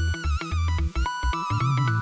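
Upbeat electronic background music with a bouncy bass beat and a warbling synth melody.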